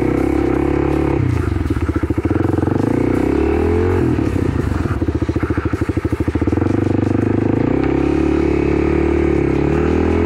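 Kawasaki KLX300's single-cylinder four-stroke engine running on a dirt-bike trail ride as the throttle is worked. Twice, about a second in and again about four seconds in, it drops to a slow, even putter off the throttle, then picks back up with rising revs.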